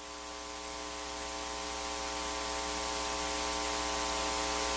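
Steady hiss with an electrical mains hum from an open microphone feed, slowly growing louder.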